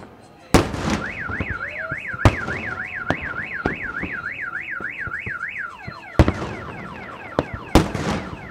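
A car alarm sounding: a siren warbling up and down about three times a second, switching about six seconds in to rapid falling chirps. Four sharp fireworks bangs go off over it, the loudest about half a second in and about six seconds in.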